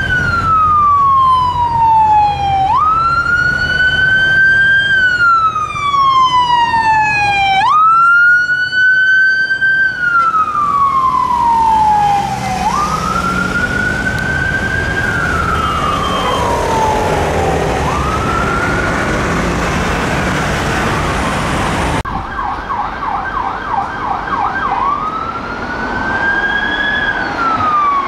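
Unmarked police car sirens wailing, each tone rising and then sliding slowly down in cycles of about five seconds. After a cut, a second siren gives a short burst of fast yelps and then goes back to the wail.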